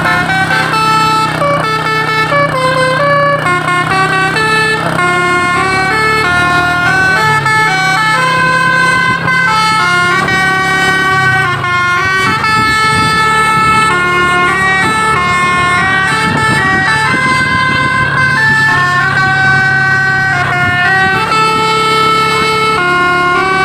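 Basuri telolet multi-tone horn on a bus playing a continuous melody of held notes that step up and down, over a steady low drone.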